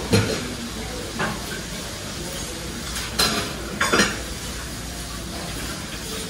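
Restaurant room sound: dishes and cutlery clink and knock several times over a steady background hiss.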